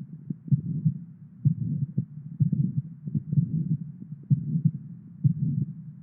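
Abnormal heart sounds: a heartbeat about once a second, with a murmur filling much of the time between the beats.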